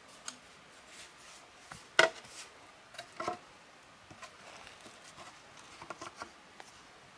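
Irregular sharp knocks and taps, the loudest about two seconds in with a brief ring, then a pair of strikes a second later and softer small clicks near the end.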